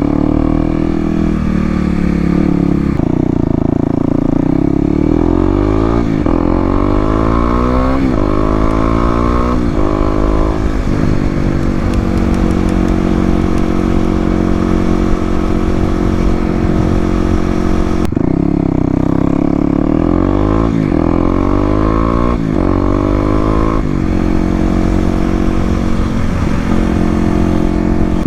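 2018 Kawasaki KLX250's single-cylinder engine through an FMF Q4 exhaust, accelerating up through the gears. Each time the revs climb, the pitch drops back as the next gear engages. In the middle the engine holds a steady speed for several seconds. Near the end it pulls up through the gears again.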